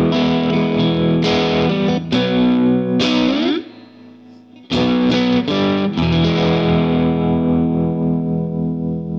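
Distorted electric guitar strumming chords, breaking off for about a second, then striking again and leaving a last chord ringing and slowly fading.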